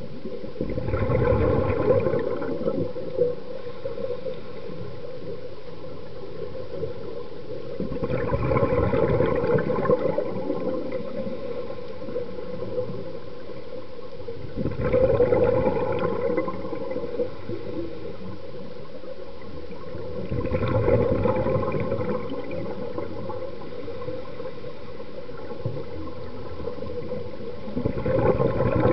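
Scuba diver breathing through a regulator, heard underwater: a gurgling rush of exhaled bubbles comes five times, about every six to seven seconds, each lasting about two seconds, over a steady hiss.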